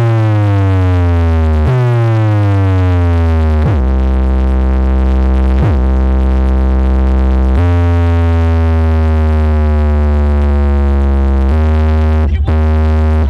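A large DJ speaker stack of bass cabinets and horns playing very loud, deep, buzzy synthesized bass tones: two falling bass sweeps in the first few seconds, then held low tones that step to new pitches a few times, with brief dropouts near the end.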